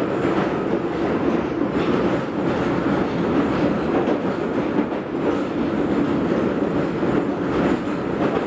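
Northern line 1995 Stock tube train running through a tunnel: a steady, loud wheel-and-rail rumble with a strong droning band and a light clatter over the track.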